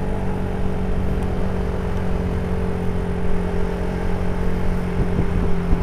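A vehicle's engine running at a steady pitch while cruising, with road and wind noise under it.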